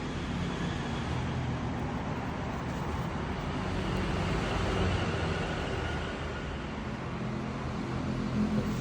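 Steady low rumble and hiss of background noise, fairly even throughout.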